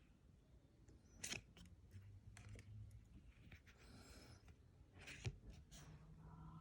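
Faint handling of a foil trading-card booster pack and its cards: a couple of sharp clicks or snips with some crinkling in between.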